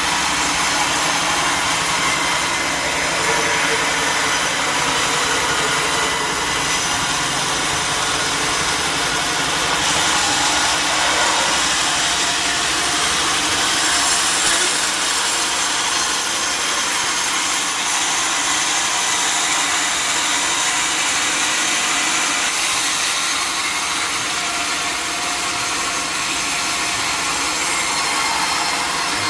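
Sawmill saw cutting through timber: a steady, loud, hissing mechanical noise that runs on without a break.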